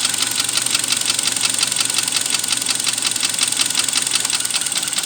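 Kia Sportage's petrol engine idling hot with a rapid, even ticking knock. The owner still hears it with ignition wires disconnected and thinks it may call for a timing chain replacement or an overhaul.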